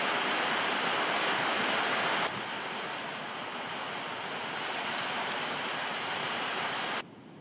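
Wind rushing through leafy trees, a steady hiss that drops a little in level about two seconds in and cuts off suddenly near the end.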